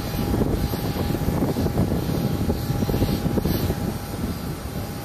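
Airport apron noise beside a parked jetliner and its towbar tug: a steady low rumble with a constant high whine.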